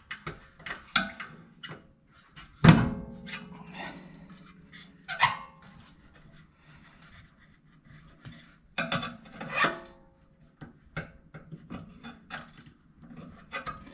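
Screwdriver prying and scraping at a rubber exhaust hanger on a steel exhaust bracket, with intermittent clicks and scrapes. A sharp metal clank with a brief ring comes about three seconds in, and further knocks and scrapes come around five and ten seconds in.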